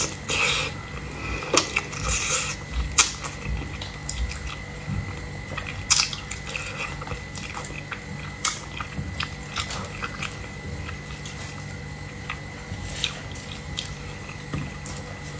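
Close-miked eating of seafood: chewing and biting, with irregular crisp crunches and clicks and a few louder snaps about 3 and 6 seconds in.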